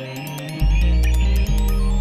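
Electronic background music; a deep bass line comes back in about half a second in.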